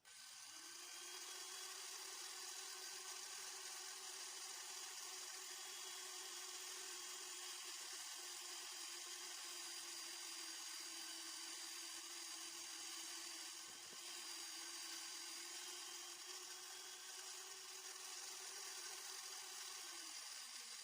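Old electric drill, clamped in a lathe's tool post, running steadily with an even whine while drilling. Near the end it is switched off and winds down.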